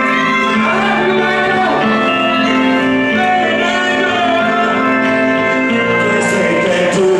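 Live music: an electronic keyboard playing long held chords that change every second or so, with a voice singing over them.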